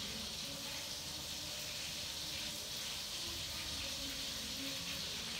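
A steady hiss, even and unbroken, like running water.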